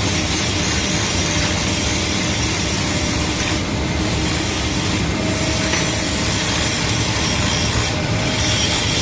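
Mitsubishi S6E diesel engine running steadily at an even speed, with no change in its note.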